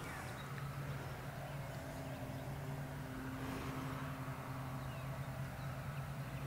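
A steady low motor hum, with a second, higher tone joining in for a few seconds in the middle. A few faint bird chirps sound now and then.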